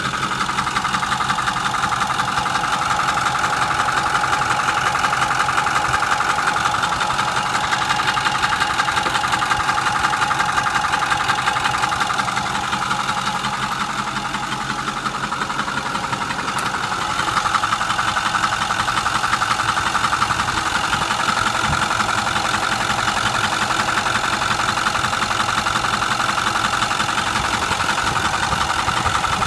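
A 2008 Ford F-250's 6.4 L Power Stroke twin-turbo V8 diesel idling with a steady, rapid knock. The owner suspects a rocker arm or something else in the top end of the engine.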